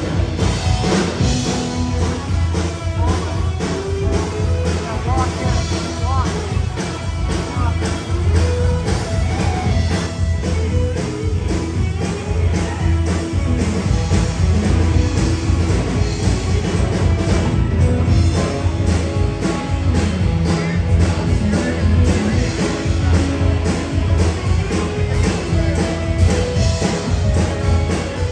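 Live rock band playing, amplified guitar and a singer over a steady beat, with crowd chatter underneath.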